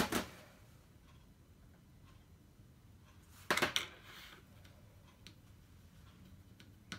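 Small handling noises of a paintbrush and plastic paint palette: a sharp click at the start and a louder short knock about three and a half seconds in, with a few faint ticks over quiet room tone.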